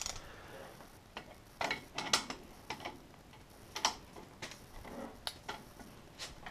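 Ratchet of a click-type torque wrench ticking in short, irregular strokes while the transmission case bolts are run down and torqued.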